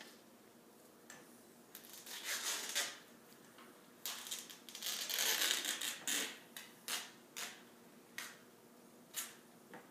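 White athletic tape being pulled off the roll and laid onto the sole of a bare foot: a crackling rip about two seconds in, a longer one from about four to six seconds, then several short scratchy strokes.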